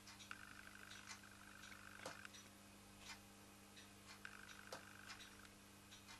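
Near silence: faint, irregular small clicks from fingers and a needle oiler handling a miniature brass model beam engine as it is oiled and its flywheel is moved, over a low steady hum.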